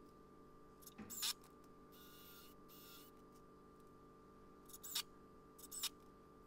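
A few short, sharp clicks and clinks from a cordless drill and small hardware being handled: a quick double click about a second in, then single clicks near five and six seconds, over a faint steady background.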